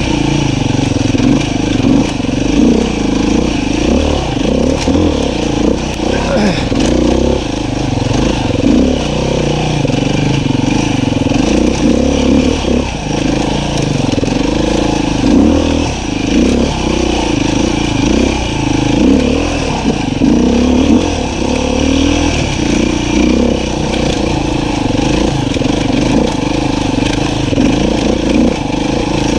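Beta 500 RR-S dirt bike's four-stroke single-cylinder engine running on the trail, its revs rising and falling constantly as the throttle goes on and off.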